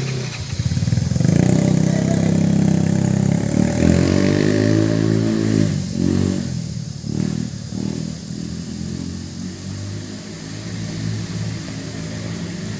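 Engine of a vehicle passing close by on the road, loudest in the first few seconds, its pitch bending around the middle and then fading as it moves away.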